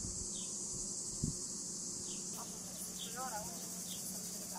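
A steady high-pitched insect drone, with faint short falling chirps repeating about once a second and a soft thump just over a second in.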